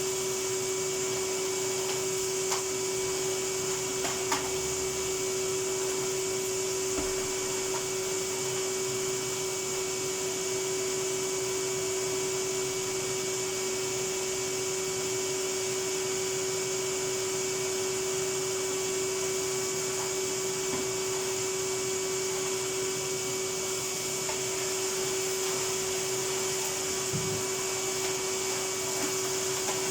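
Vacuum cleaner running steadily, its motor giving a constant whine with a few faint clicks.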